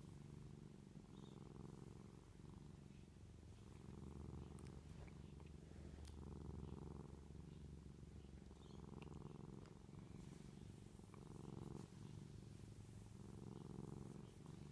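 Domestic cat purring steadily, the low purr swelling and fading with each breath in and out, about every second and a half.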